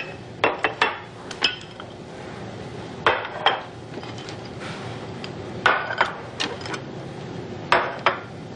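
Dishes and plates clinking and knocking as a restaurant order is set down on a table: about a dozen separate clinks, some with a short ring, coming in small clusters over a faint steady background.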